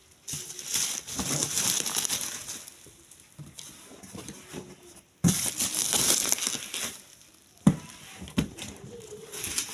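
Packaging being handled while unboxing a desk fan: crinkling and rustling in two stretches, with a sharp knock near the end.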